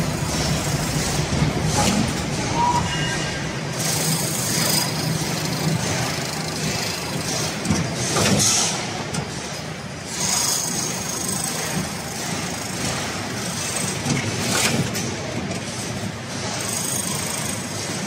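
Automatic crimped wire mesh weaving machine running, a steady mechanical clatter with a sharp clank every few seconds.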